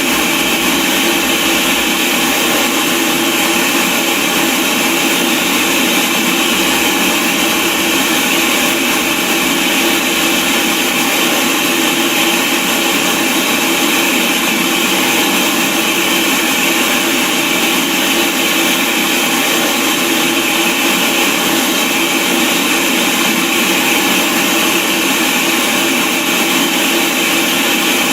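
Television static: a loud, steady hiss that never changes, the sound of a broadcast that has gone off the air.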